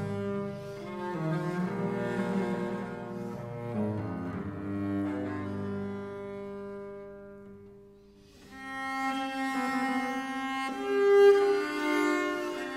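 Background music of slow, long held notes, dying away to almost nothing about eight seconds in and then swelling back.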